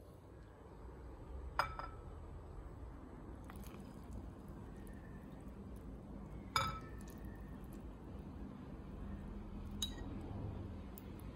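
Chopsticks and white ceramic bowls clinking three times, each a sharp knock with a short ring, amid soft stirring of broth as noodles are tipped from one bowl into another.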